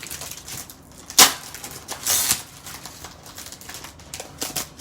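A pack of shimmer vellum paper in its packaging being handled: a sharp tap about a second in, a short rustle about two seconds in, and a few light clicks near the end.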